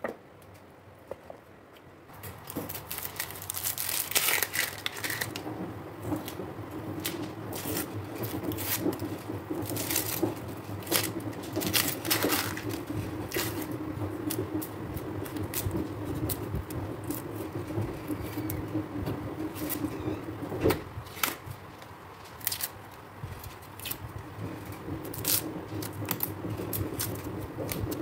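Dry papery onion skins crackling and tearing as an onion is peeled with a knife, with irregular small scrapes and clicks of the blade, starting about two seconds in. A low steady hum runs underneath.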